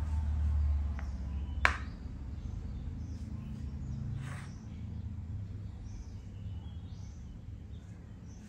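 Steady low background rumble, with one sharp click about one and a half seconds in. Around four seconds in, a brief soft tap as a plastic Thai chess piece is moved and set down on the board.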